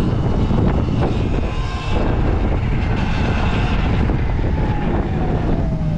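Wind rushing over the microphone of a Sur-Ron electric dirt bike as it rides along. A faint whine slowly falls in pitch in the second half.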